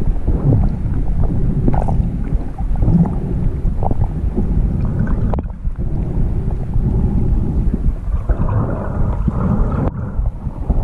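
Muffled underwater rumble and sloshing of water moving past a submerged camera's housing as a snorkeler swims, with a few faint knocks.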